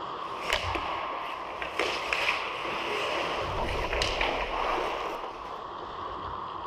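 Ice hockey play close to the goal: skate blades scraping and carving on the ice, with several sharp clacks of sticks and puck, the loudest about half a second in and around four seconds in.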